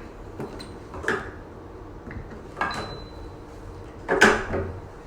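Plastic handling knocks and clicks as the hydradermabrasion handle's tubes are pushed into their ports on the machine: three short knocks, the loudest about four seconds in.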